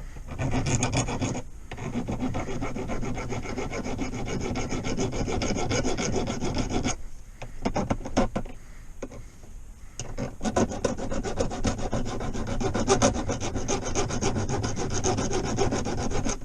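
Hand file rasping on metal, smoothing down a fresh weld where a bolt was welded onto a gear-shifter lever. Quick repeated strokes, thinning to a few scattered strokes for a few seconds about halfway through.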